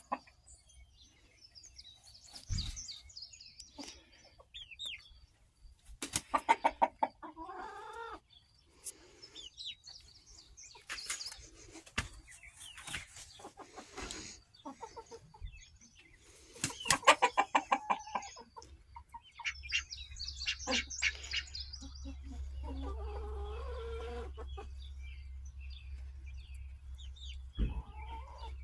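A mixed flock of Black Australorp, Blue Laced Red Wyandotte, Bielefelder and Rhode Island Red chickens clucking and calling in bursts, with some quick runs of clucks. A steady low rumble comes in about two-thirds of the way through.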